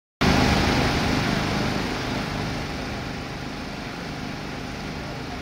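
Fire engine's pump engine running steadily under a hiss, loudest in the first second or two and then settling a little lower.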